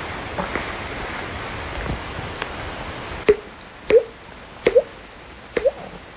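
A man's stomach gurgling: after about three seconds of steady hiss, five short rising gurgles follow at fairly even spacing, each starting with a click.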